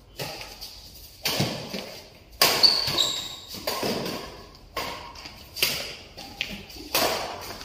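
Badminton rackets striking a shuttlecock in a fast rally: about seven sharp strikes roughly a second apart, each echoing in a large hall.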